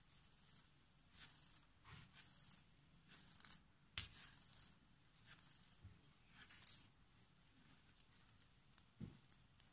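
Faint rustling and scratching of threads being plucked out of the cut ends of satin ribbon pieces to fray them into a fringe. There is a sharper click about four seconds in and a soft knock near the end.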